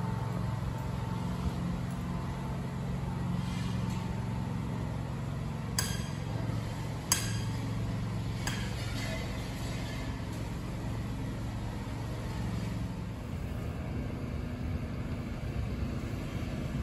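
Construction-site sound: a steady low mechanical hum, with three sharp metal clinks a second or so apart about midway through.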